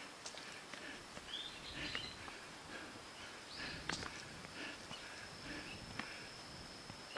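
Footsteps climbing a dirt trail of log steps and leaf litter, with a few sharp crunches, the loudest about four seconds in. Birds chirp now and then over a faint steady high-pitched tone.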